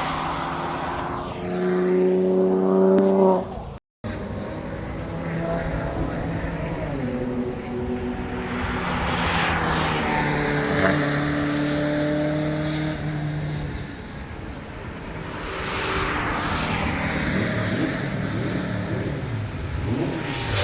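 Car engines running hard on a race circuit, their pitch climbing and dropping with revs and passes, several at once at times. The sound breaks off abruptly just before four seconds in and picks up again.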